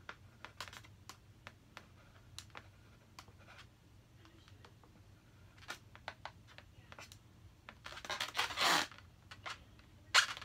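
Skinny marker drawing short strokes on an inflated latex balloon: a string of light scratchy ticks. About eight seconds in, a louder rubbing squeak as the latex balloons are handled.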